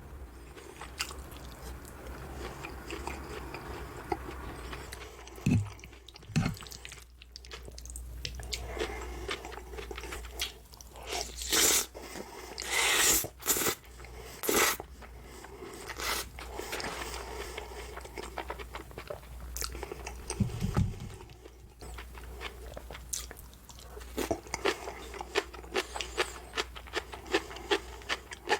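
Close-miked eating of a breaded pork cutlet: crisp crunching bites and chewing, with a run of louder crunches about halfway through.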